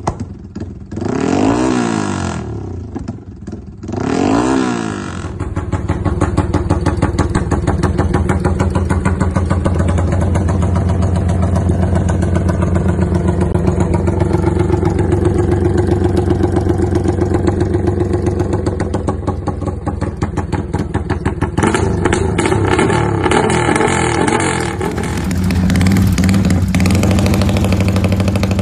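Yamaha Y15ZR (MX King 150) single-cylinder engine through a non-standard aftermarket exhaust. It takes two quick throttle blips in the first few seconds, then settles into a loping, pulsing rumble idle from 'horse timing' ignition tuning. The idle changes tone twice in the last several seconds.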